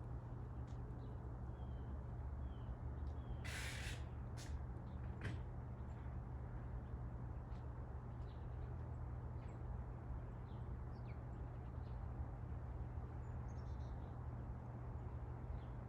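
Steady low outdoor rumble with faint, scattered bird chirps and a brief hiss about three and a half seconds in.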